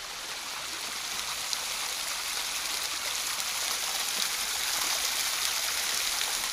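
Low-flowing waterfall, a thin flow of water splashing and trickling over rocks as a steady hiss that swells a little and eases toward the end.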